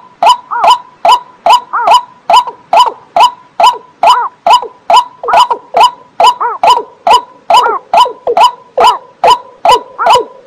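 A water bird calling a steady, evenly spaced series of short, abrupt 'kok' notes, a little over two a second, each with a brief arched pitch.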